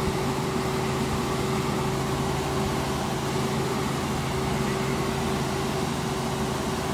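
Helicopter engine and rotor noise heard from inside the cockpit in cruising flight: a steady drone with a constant mid-pitched hum over a deep rumble.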